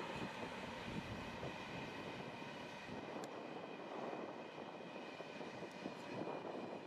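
Passenger train of sleeping coaches hauled by a TRAXX E186 electric locomotive, running past and away: a steady, distant rumble of wheels on rail with a faint steady whine. The deepest part of the rumble drops away about three seconds in.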